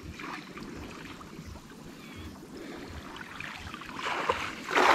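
Shallow, muddy water sloshing as someone wades through it, with a louder splash near the end.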